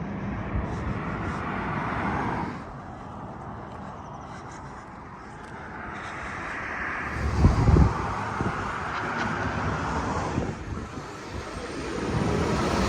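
Vehicles passing on a road one after another, each a whoosh that swells and fades as it goes by, with brief low rumbles in the middle.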